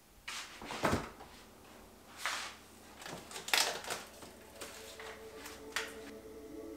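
Food being taken out of a refrigerator: a series of separate clunks, knocks and rustles of containers and a fridge drawer being handled.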